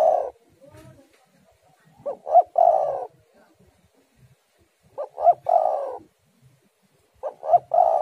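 Spotted dove cooing: its three-part call, two short notes followed by a longer rolling note, given three times about two and a half seconds apart, with the end of another call at the very start.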